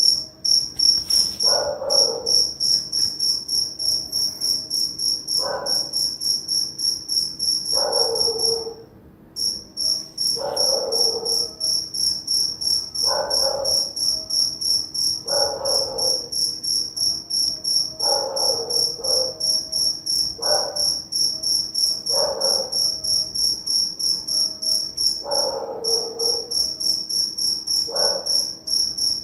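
Crickets chirping in a fast, steady high-pitched pulse that stops briefly about nine seconds in, over a dog barking once every two to three seconds.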